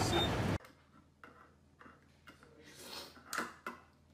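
A loud voice cut off abruptly less than a second in, then the metal clicks and short scrapes of a hand-held can opener being fumbled onto the rim of a can, its rim not yet caught between the opener's two wheels.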